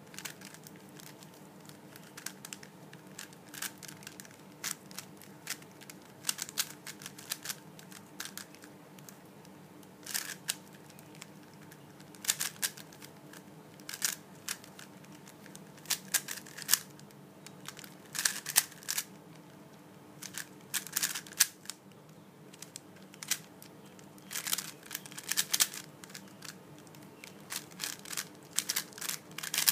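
Plastic layers of a 3x3 speed cube clicking and clacking as it is turned fast, in quick bursts of moves with short pauses between them while the cube is solved.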